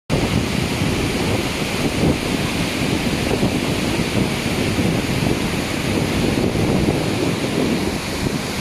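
Steady, loud rush of a waterfall cascading down rock ledges.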